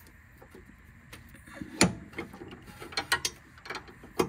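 Irregular sharp metallic clicks from a breaker bar and socket being worked on a sway bar link's 17 mm nut, the loudest about two seconds in and near the end. The link's ball stud is spinning along with the nut instead of the nut breaking loose.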